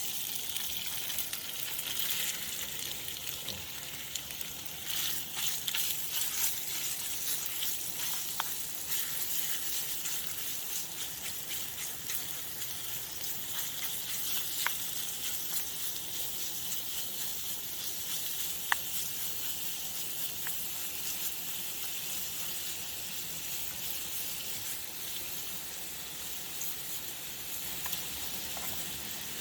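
Chicken pieces frying in oil in a pan on a camping stove: a steady sizzle, with a few sharp pops of spitting oil, the loudest about two-thirds of the way through.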